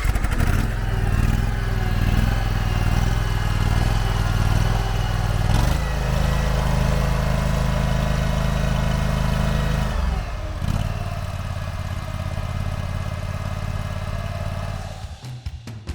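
Briggs & Stratton 23 hp gas engine of a Cougar CG823 tracked skid steer running steadily, easing to a lower pitch about ten seconds in and dropping in level near the end.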